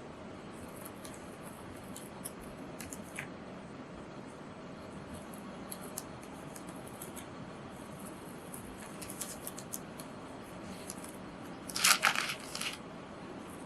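Paper of a printed etching being cut by hand: small scattered snips and clicks, then a louder run of several quick cuts about twelve seconds in.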